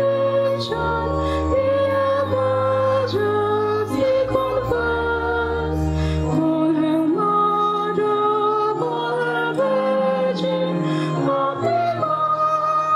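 A hymn sung by a group, women's voices most prominent, over long held bass notes from an accompanying instrument.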